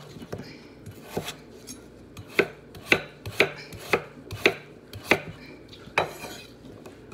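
Kitchen knife chopping russet potatoes on a wooden cutting board: about nine sharp knocks of the blade striking the board, coming roughly every half second in the middle stretch.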